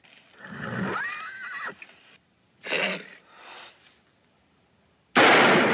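A horse snorting and giving short whinnying cries, then a very loud pistol shot near the end.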